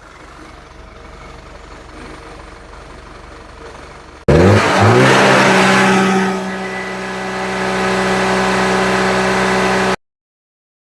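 A faint steady background, then, after a sudden cut about four seconds in, a car engine revving up sharply and holding at high revs with a brief dip, before cutting off abruptly.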